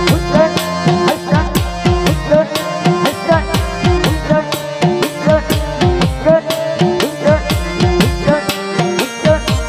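Instrumental interlude of Bengali folk music: hand drums play a fast, even rhythm whose deep bass strokes slide down in pitch, over sustained melody notes.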